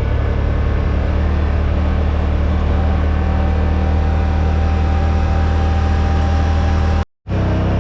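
Side-by-side UTV engine running steadily, heard on board during the ride, with a deep even drone that holds one speed. The sound cuts out completely for a moment about seven seconds in, then carries on.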